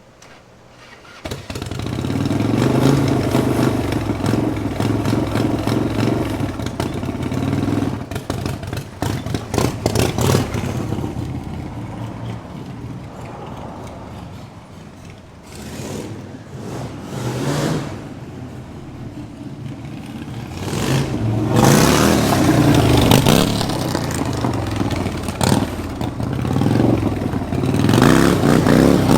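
Harley-Davidson 1300cc V-twin go-kart engine, coming in loud about a second in and running hard, revved up and down repeatedly. The revs rise and fall several times near the end.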